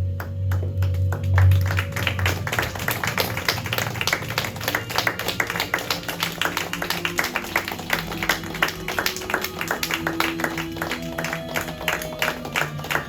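Music with a deep low tone that fades out about two seconds in, then audience applause, with dense steady clapping over held musical notes.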